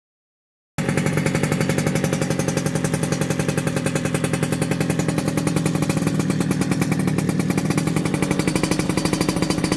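Yamaha RZ50's single-cylinder two-stroke engine idling cold on choke just after starting, its exhaust running steadily through a BEET expansion chamber with a fast, even popping beat. The sound cuts in sharply almost a second in.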